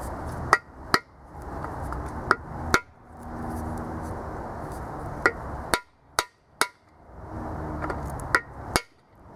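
Hammer striking a freeze plug driver to drive an expansion plug into a core hole in a small-block Chevy 350 engine block: about ten sharp metallic blows in pairs and small groups, each with a short ring. The plug goes in and seats.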